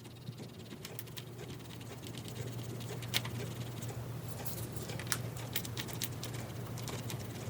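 Dremel rotary tool running with a steady low hum as it scrubs rust off the ends of a Rock-Ola jukebox mechanism's metal contact pins, with irregular scratchy clicks as the tool works along the pins.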